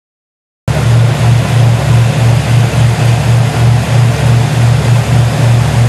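Boat engine running steadily under way, a loud low hum that pulses about three times a second, with rushing water and wind noise over it; it starts about half a second in.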